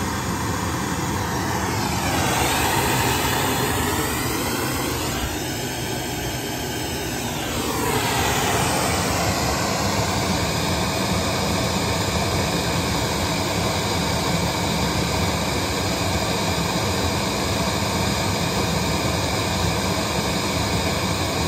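Steady, loud hiss of broadband test noise played through a loudspeaker for an SPL measurement. For the first several seconds it has a swirling, phasing sweep, then it settles into an even hiss.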